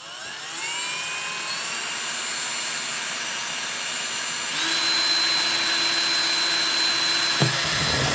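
Cordless drill turning a 3/8-inch bit through the black plastic wall of a container. The motor winds up with a rising whine, runs steadily, then speeds up to a higher, louder pitch about halfway through, with a brief knock near the end.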